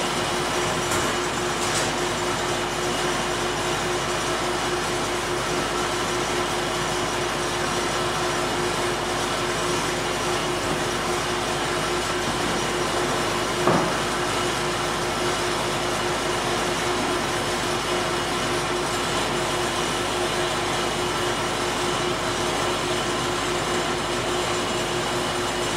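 Sawmill shop machinery running steadily, a loud even noise with a constant hum. A single knock of a board set down on the stack about 14 seconds in.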